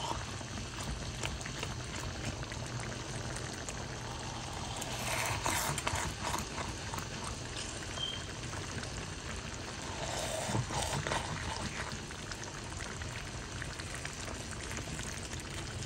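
Rice and chicken gizzards simmering in broth in a non-stick pot, bubbling and popping steadily, while a silicone spatula stirs gently through the wet rice, with louder swishes about five seconds in and again about ten seconds in.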